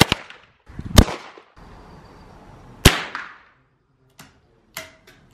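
Handgun gunshots: two shots in quick succession at the start, another about a second in and one near three seconds, each leaving a short trailing echo. A few quieter, sharp cracks follow between four and five seconds in.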